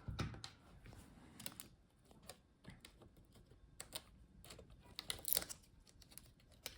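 Faint, scattered light clicks and taps of small plastic and metal laptop parts being handled and unclipped during disassembly, with a few clusters of clicks.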